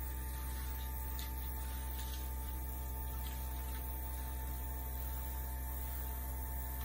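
Steady electric hum of a small handheld air blower running while it pushes wet acrylic paint across a canvas.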